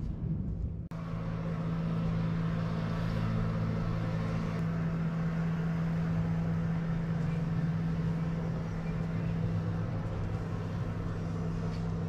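Low rumbling noise that cuts off abruptly about a second in, giving way to a steady mechanical hum: a constant low drone over a wash of background noise.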